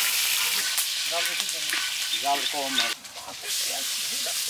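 Spice-coated grouper pieces sizzling steadily as they deep-fry in hot oil in a large wok over a wood fire. The sizzle dips briefly about three seconds in.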